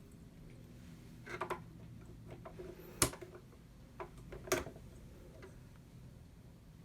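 A few separate light clicks and knocks from hands working the parts of a Singer Cosplay sewing machine: a small cluster about a second and a half in, one sharp click near the middle, and two more a second or so later, over a faint low hum.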